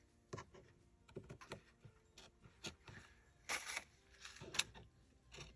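Scissors cutting fabric, heard as faint scattered snips and clicks, with short rustling cuts about three and a half and four and a half seconds in.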